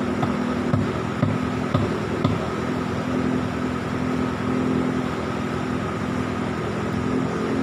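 Toyota Avanza car engine on a longtail boat running steadily at a constant pitch, with a few short knocks in the first couple of seconds.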